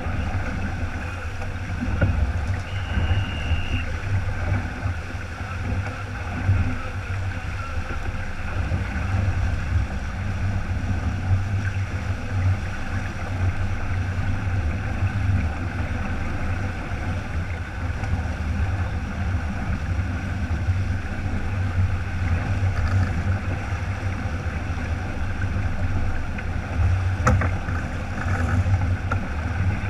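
Water rushing and splashing along the hull of a heeled keelboat sailing through chop, under a steady low rumble of wind buffeting the microphone.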